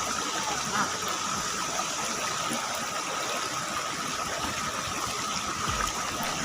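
River water rushing steadily, with a thin, steady high tone over it.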